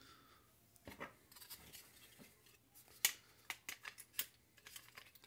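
Plastic housing of Fatshark Attitude V2 FPV goggles being handled: irregular light clicks, taps and rubbing, with a sharper click about three seconds in.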